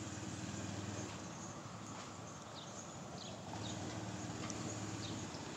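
Faint outdoor background: a low steady hum, with a few short high chirps between about two and a half and four and a half seconds in.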